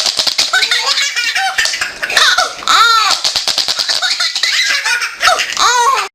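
A baby laughing hard, in a long run of repeated short laughs that cuts off suddenly near the end.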